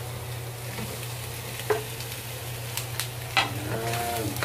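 Shrimp and onions sizzling as they fry in oil in a nonstick wok, stirred with a wooden spatula that knocks against the pan a few times.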